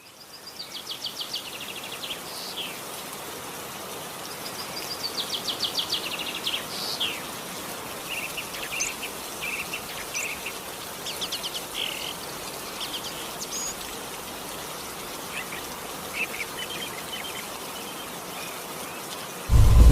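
Songbirds singing over a steady hiss of outdoor ambience: two bursts of rapid trilled notes in the first seven seconds, then scattered short chirps and calls. A loud low rumble cuts in suddenly at the very end.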